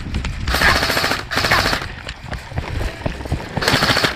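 Airsoft guns firing full-auto: three rapid buzzing bursts of about half a second to a second each, two back to back just after the start and one near the end, with running footsteps on grass between them.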